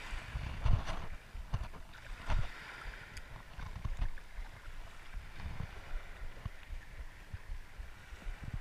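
A spinning reel being cranked on the retrieve, under wind on the microphone that gives irregular low thumps, the loudest about a second in and again near two and a half seconds, with water lapping.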